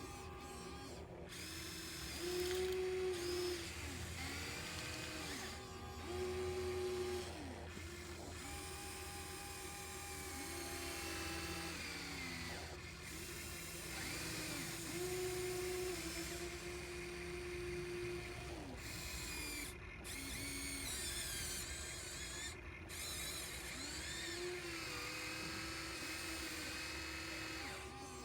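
Small electric motors of radio-controlled model excavators whining. The pitch rises and falls in short arcs as the machines start, move and stop again and again.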